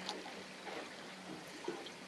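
Water lapping and splashing against a fishing boat's hull in small, irregular splashes, over a faint steady hum.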